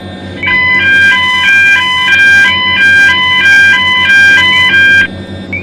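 Fire alarm sounder giving its electronic two-tone evacuation alert, switching rapidly back and forth between a higher and a lower tone, in the pause between recorded evacuation announcements. It starts about half a second in and cuts off about five seconds in.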